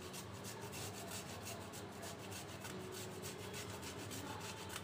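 Fresh ginger being grated on a metal hand grater: a steady run of quick, evenly spaced rasping scrapes, several strokes a second.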